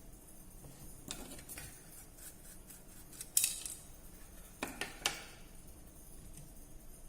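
A few light clicks and metallic taps of small tools and phone parts being handled. The sharpest comes about three and a half seconds in, with two more close together near five seconds.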